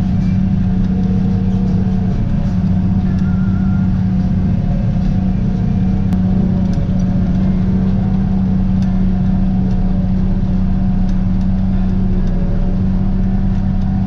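Tractor engine pulling under steady load while driving a New Holland pull-type forage harvester chopping standing corn: a loud, even drone with a strong steady hum, heard from inside the tractor cab.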